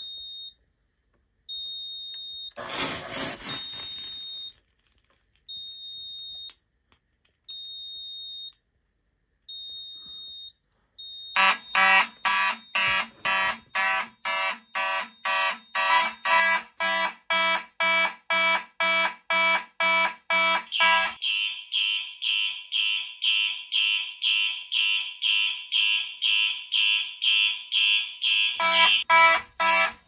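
A high electronic beep repeats about every two seconds, broken by a short hiss of aerosol test smoke. About eleven seconds in, the fire alarm system's horns start sounding in rapid pulses, about two a second: the smoke detector has gone into alarm. Around two-thirds of the way through, the deeper part of the horn sound drops out, leaving a higher pulsing, and the full sound comes back near the end.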